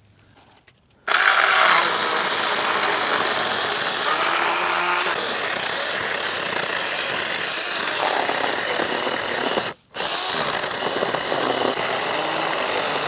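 Saker Mini 20-volt cordless electric chainsaw with a 4-inch bar running and cutting through a piece of wood, starting about a second in. It stops for a moment a few seconds before the end, then runs on.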